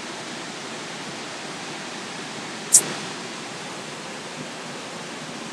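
Steady, even outdoor hiss like distant rushing water or wind, with one brief, sharp high-pitched sound about halfway through.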